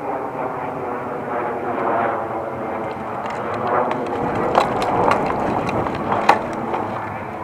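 A steady engine drone with a steady pitch, with a couple of sharp cracks about four and a half and six seconds in.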